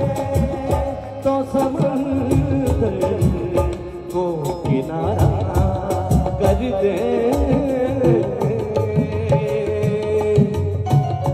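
Live South Asian devotional music in an instrumental passage: a melody on keyboard and harmonium over a tabla and dholak rhythm.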